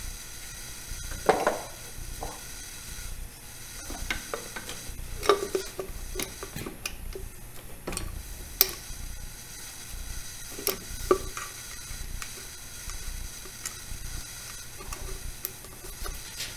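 Scattered sharp metallic clinks and knocks of tools and small metal parts being handled during reassembly of a milling-machine power feed, over a faint steady hum.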